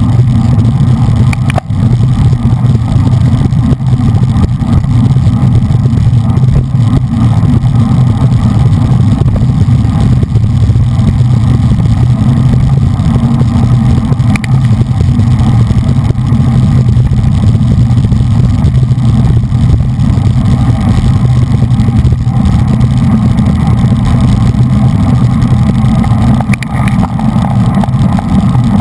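Wind buffeting a bike-mounted action camera's microphone at racing speed: a loud, steady low rumble, with a few faint brief clicks.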